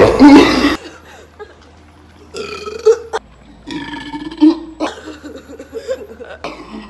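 A loud, deep, drawn-out burp from gulping carbonated water, ending about a second in. It is followed by several softer, short vocal sounds.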